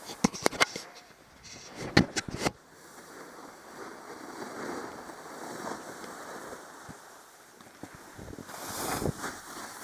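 Snowboard scraping and sliding over choppy snow, with wind on the microphone; a quick run of sharp knocks in the first second and again about two seconds in, and a louder rush of scraping snow near the end.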